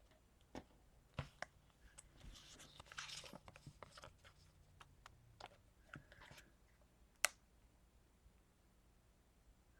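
Faint handling of paper and a plastic sticker backing: a soft rustle of peeling and crinkling for about two seconds, set among a few light clicks and taps, with one sharper click about seven seconds in.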